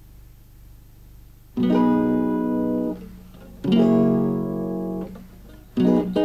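Acoustic guitar: after a short quiet, two strummed chords ring out, each held for over a second, then quick plucked notes begin near the end.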